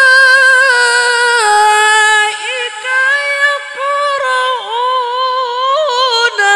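A man's Qur'an recitation (tilawah) in a high, sustained singing voice through a microphone, drawing out a long melodic phrase with wavering ornaments. The pitch steps down about a second and a half in, and the line breaks off briefly a few times before running on.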